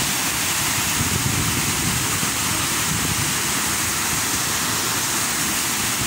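A large waterfall pouring over rocks into its pool: a loud, even, unbroken rush of falling water.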